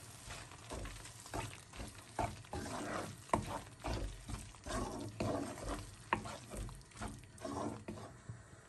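Wooden spatula stirring thick curry masala and chopped herbs in a nonstick frying pan, in quick strokes about two a second with a few sharp taps against the pan, over the masala's faint sizzle. The stirring stops near the end.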